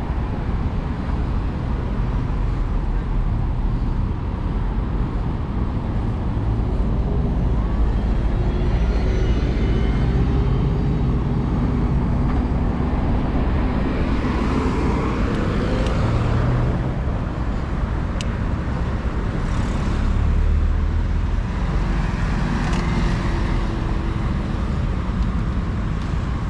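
City street traffic: a steady low rumble of cars going by, with vehicles passing close a few times in the second half.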